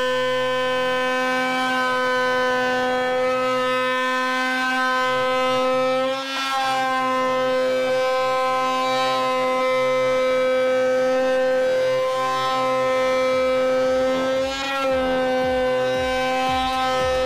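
CEL Multi2PRO 10.8 V cordless oscillating multi-tool running with a hook-and-loop sanding finger pad, sanding: a steady, high-pitched buzzing whine. The pitch and loudness sag briefly twice, about six seconds in and again near fifteen seconds.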